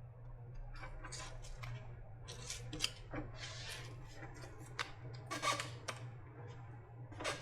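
Irregular scraping, rustling and clicking of hands and a tool working on the battery pack's casing and tape, over a steady low hum.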